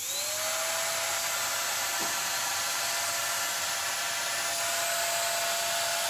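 Clatronic BS 1306 N stick vacuum cleaner running steadily: a motor whine that climbs in pitch over the first half second as the motor spins up, then holds level over a hiss of rushing air.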